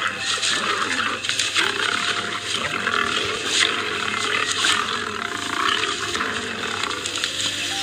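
Lion growling: a rough, continuous growl with no clear pauses.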